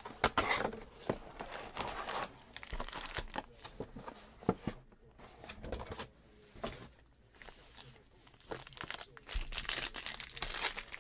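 A 2019 Panini Certified football hobby box being opened and its foil card packs handled: irregular crinkling and tearing, loudest near the start and again near the end, quieter in the middle.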